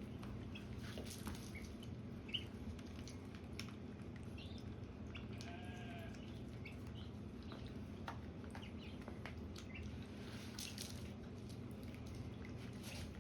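Ducklings dabbling for peas in a bowl of water: scattered soft clicks and small splashes, with a few short peeps, over a steady low hum.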